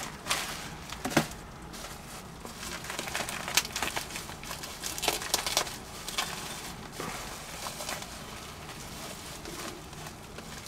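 Plastic bubble wrap crinkling and crackling as it is pulled off a wrapped porcelain piece by hand, with irregular sharp crackles and a louder snap about a second in.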